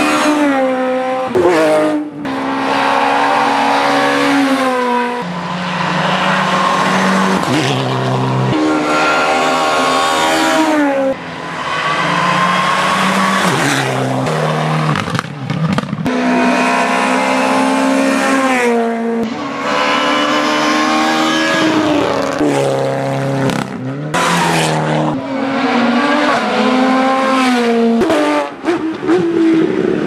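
Rally car engines at full throttle on a tarmac stage, among them a Suzuki Swift S1600. They rev high, climb in pitch through each gear and drop at every upshift, with stretches of lower revving between runs.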